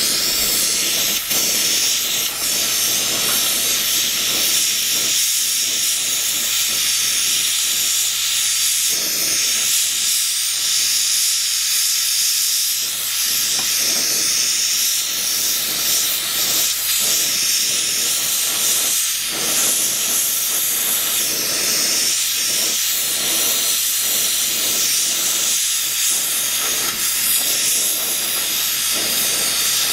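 Gas torch burning with a steady hiss as its flame heats a rod to cherry red for bending.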